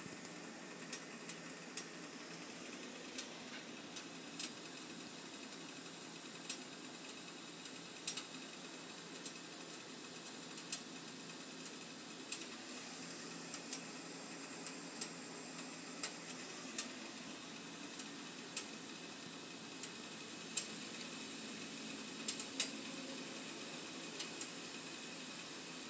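A pan of water heating close to the boil on a stove: a steady hiss with irregular sharp ticks and pops every second or so.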